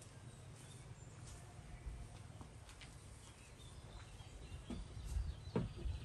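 Footsteps on wooden porch steps: a few knocks in the last couple of seconds, over faint outdoor ambience with birds calling.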